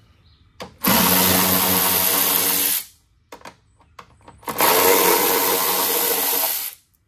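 Cordless power tool with a small socket running in two bursts of about two seconds each at a steady pitch, backing out the 7 mm screws that hold a wheel-well splash shield.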